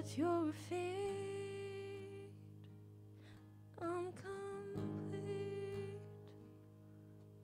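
Live worship music: a woman's voice sings two long held phrases, one at the start and one about four seconds in, over acoustic guitar strums and a steady low sustained tone.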